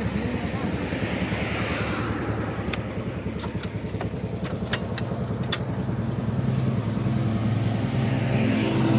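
Motorcycle engine running steadily, getting louder with a stronger low tone over the last couple of seconds. A few sharp clicks come in the middle.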